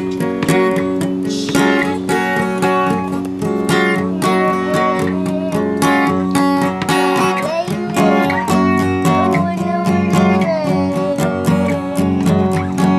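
Acoustic guitar strummed in a quick, even rhythm.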